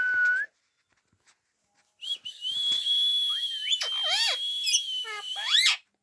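A rose-ringed parakeet whistling. A short steady whistle comes at the start, then a long high whistle held for over three seconds, with several quick rising-and-falling calls over it near the end.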